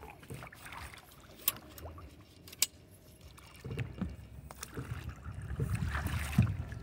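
Water splashing and sloshing as a hooked flathead catfish thrashes at the surface beside the boat and is scooped into a landing net. Two sharp knocks come in the first three seconds, and rough handling noise and knocks pick up in the second half as the net goes in.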